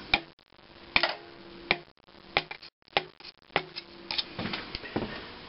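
Piston of a McCormick-Deering type M one-cylinder engine being tapped through a ring compressor into its cylinder with the end of a rod. A series of sharp, irregular knocks, roughly one to two a second, each with a short ring.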